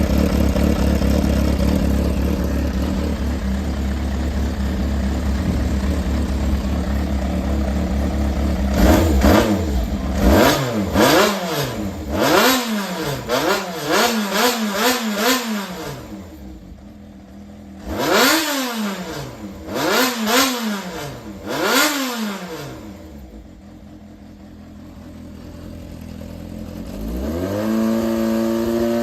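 Yamaha XJR400 air-cooled inline-four engine running: it idles steadily, then is blipped on the throttle in a quick run of revs that rise and fall back, then three more blips, and near the end its revs climb and hold. The seller describes it as running well, with no abnormal noise.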